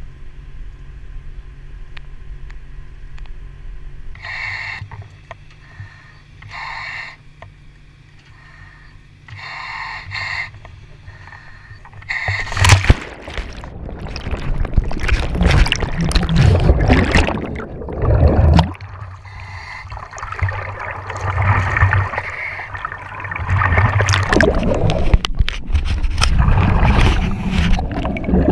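A low, steady boat-engine hum, broken by three short higher-pitched bursts. About twelve seconds in, a loud rush of water and bubbles as a diver in a surface-supplied helmet goes under, followed by surging gurgles of exhaust bubbles around the helmet.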